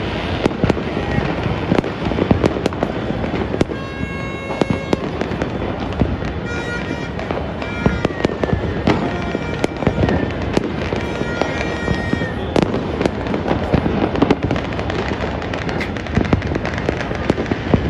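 Dense, continuous barrage of fireworks and firecrackers going off across a city: overlapping bangs, pops and crackling with no let-up. Several held horn-like tones sound over it about four seconds in, around seven seconds and again around eleven to twelve seconds.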